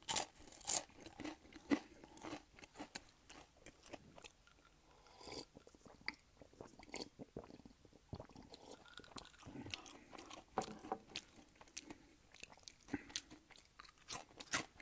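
Close-miked eating: a loud crunchy bite in the first second, then chewing with many small crunches and mouth clicks, with more bites later on.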